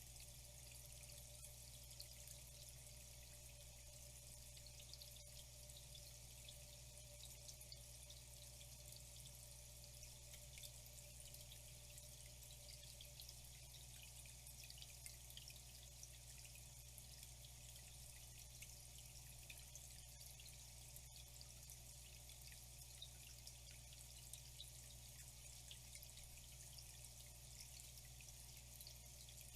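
Faint, steady trickle of flowing water with small drips and splashes throughout, over a low steady hum.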